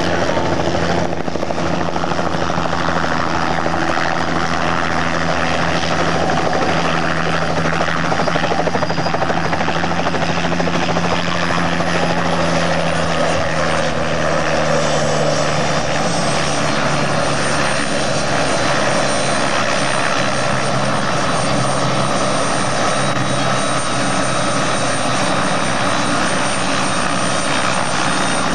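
Helicopter coming down to land and then running on the ground with its rotor turning, a steady loud blade chop. A thin high whine slides down and settles about halfway through.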